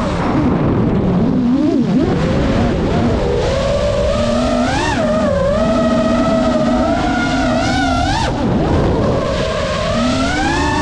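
FPV freestyle drone's brushless motors and propellers whining, the pitch rising and falling with throttle, over a constant low rush of air. The whine holds high and fairly steady through the middle, breaks off sharply about eight seconds in, then climbs again near the end.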